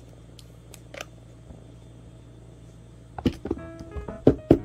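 A few faint clicks and taps over a steady low hum. About three seconds in, background music starts: quick, evenly plucked piano-like notes.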